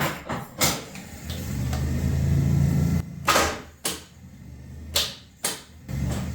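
A 2001 Jeep TJ's starter is energised and gives a steady low drone for about two seconds that cuts off abruptly, followed by several sharp clicks. The engine does not start, which the owner puts down to a weak battery.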